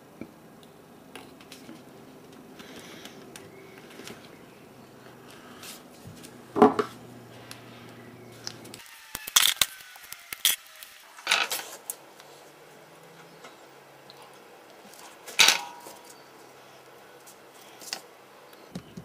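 Small sharp clicks and taps from handling a small circuit board and the leads of a ceramic capacitor being fitted into it: about five clicks, the loudest about six and a half seconds in and another near fifteen and a half seconds.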